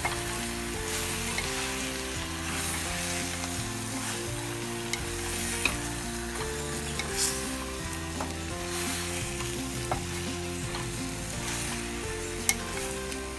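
Curry and vegetables sizzling in a clay pot as they are stirred, with a few sharp clicks of the utensil against the pot. Soft background music with slowly changing chords runs underneath.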